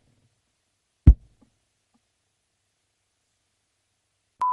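A single dull thump about a second in, then silence, then near the end a short steady electronic beep of about half a second that cuts off sharply.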